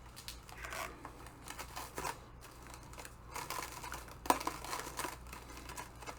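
Rustling and clicking of foam packing peanuts and packaging being rummaged through by hand, with one sharp click a little past four seconds in.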